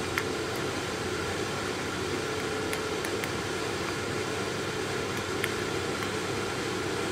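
Steady fan-like hiss with a few faint, sharp clicks of metal alligator clips and wires being handled on a car battery's terminals.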